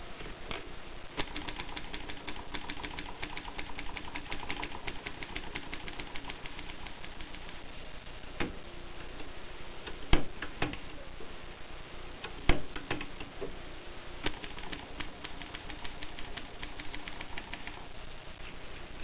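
Groma typewriter being typed on: fast runs of key strikes clacking, with two louder knocks about ten and twelve and a half seconds in, then more typing.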